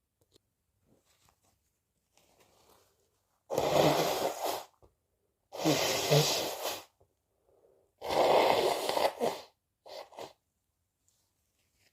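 A person sneezing three times, about two seconds apart, each one loud and about a second long, followed by two short, quieter sounds.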